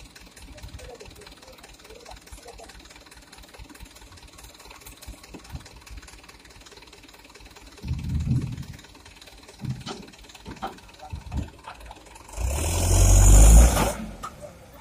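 Hino Dutro dump truck's diesel engine running at idle while its tipped bed unloads soil, with a few dull knocks around the middle and a loud rushing burst near the end lasting about a second and a half.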